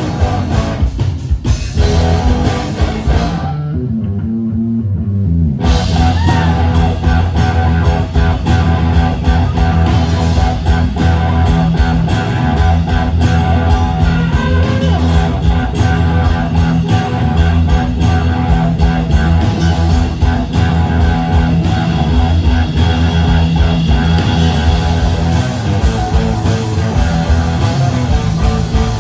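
Live rock band playing: electric guitars, bass guitar and drum kit. About four seconds in, everything but the low end drops out for about two seconds, then the full band comes back in.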